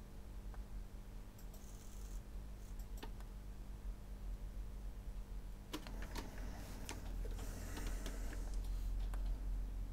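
Small motors and plastic gears of a Sharp MD-MS702 minidisc mechanism, run directly from test probes, clicking and whirring, with the busiest stretch in the second half over a steady low hum. The mechanism is moving, a sign that its motors work.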